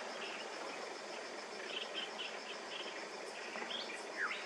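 Outdoor insect and bird ambience: a steady high insect trill over a soft hiss, a run of short bird chirps, about four a second, around the middle, and two rising bird whistles near the end.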